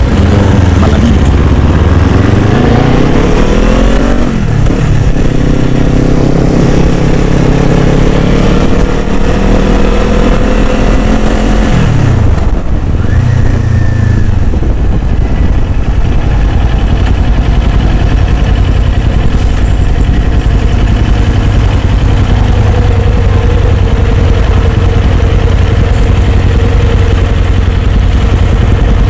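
Motorcycle engine, the Kawasaki Z400's liquid-cooled parallel twin, accelerating: its pitch rises, drops at a gear change about four seconds in, and rises again. About twelve seconds in it falls away to a low, even running note that then holds steady.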